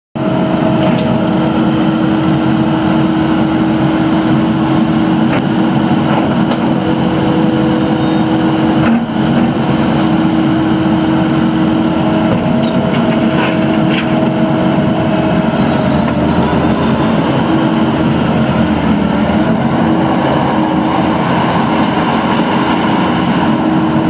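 Kubota SVL75-2 compact track loader's 74.3 hp Kubota diesel engine running at a steady pitch while the machine drives and turns on its rubber tracks.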